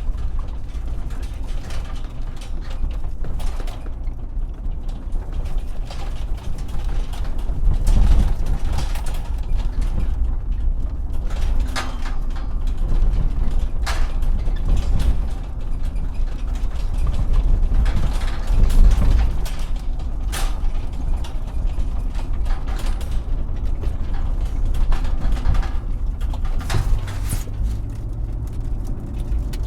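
A car driving over a bumpy road: a steady low rumble with many rattles, clunks and creaks, loudest about eight seconds in and again near nineteen seconds.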